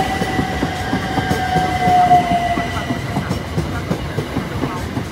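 A c2c Class 357 Electrostar electric multiple unit passing close by, its wheels knocking steadily over the rail joints. A steady whine sits over the knocking and sags slightly in pitch over the first three seconds.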